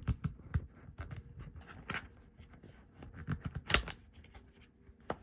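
Cardboard box and shrink-wrapped card decks being handled and lifted out: a run of light, irregular taps and clicks, with one sharper click a little past halfway.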